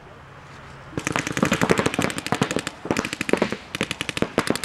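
Paintball markers firing rapid strings of shots, starting about a second in after a brief lull.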